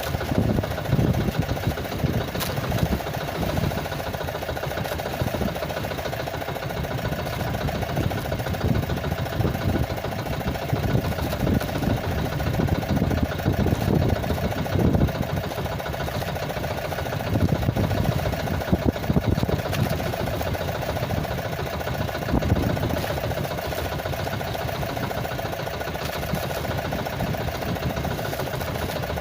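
Small engine running steadily at idle, with irregular low rumbles now and then.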